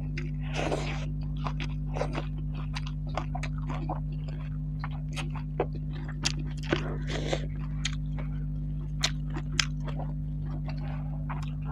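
Close-miked mukbang eating sounds: chewing with frequent sharp mouth clicks and crunches, and a few longer wet squelches as curry-soaked rice is mixed by hand. A steady low hum runs underneath.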